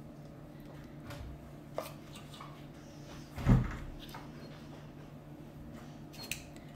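Spoon knocking and scraping against a metal mini-muffin tin while batter is dropped into paper liners: a few faint clicks, with one louder knock about halfway through.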